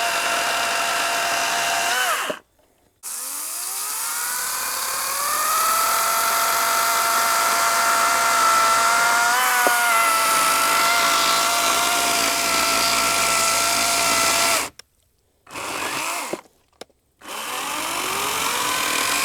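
A 40-volt battery-powered electric chainsaw runs with a steady whining motor note while cutting rounds off a log. The sound breaks off abruptly twice, and after each break the whine rises as the motor spins back up to speed.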